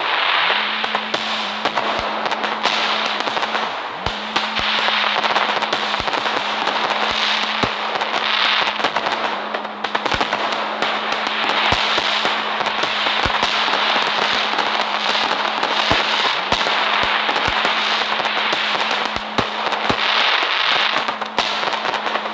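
Firecrackers going off continuously: a dense crackling hiss of sparks, peppered with many sharp cracks, over a steady low tone.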